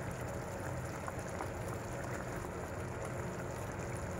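Fish simmering in oyster-sauce and chilli-ketchup gravy in a pan: a steady soft bubbling with faint small pops.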